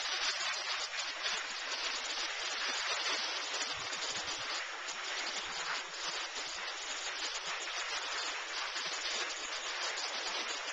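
Steady scraping hiss of sliding downhill over slow, soft snow.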